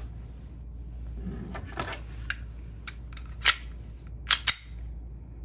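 Several sharp mechanical clicks and snaps from a SIG P365 CO2 BB pistol being handled, the loudest a close pair near the end.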